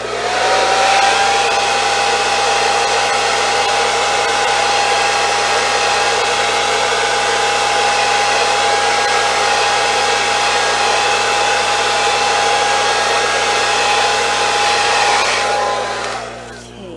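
Hair dryer running steadily, blowing wet acrylic pour paint outward across the canvas: a steady motor whine under rushing air that rises as it switches on at the start and winds down about a second before the end.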